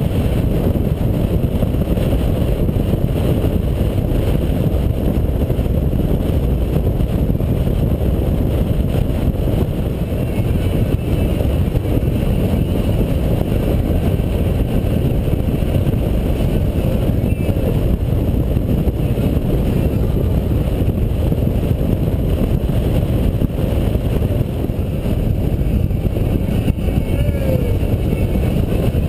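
A touring motorcycle at steady highway speed: a constant low rumble of wind rushing over the handlebar-mounted microphone, mixed with the engine running.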